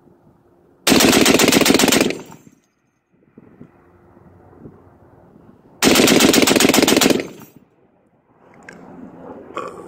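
M2 .50-calibre heavy machine gun firing two bursts, each a little over a second of rapid shots, about five seconds apart.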